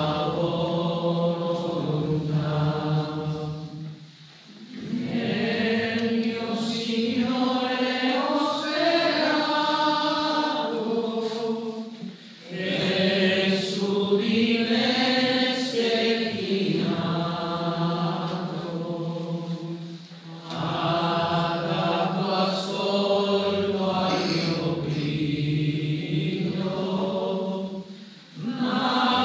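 Slow hymn sung in unison by voices in church, in long held phrases of about eight seconds, with short breath pauses between them.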